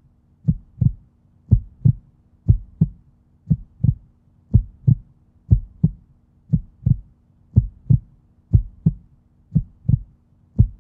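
Heartbeat sound effect: paired low thumps, lub-dub, repeating steadily about once a second.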